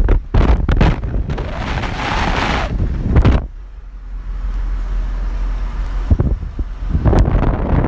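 Wind buffeting the microphone of a moving vehicle, over the rumble of its engine and tyres. About three and a half seconds in the buffeting drops away, leaving a steady low rumble, and the gusts return near the end.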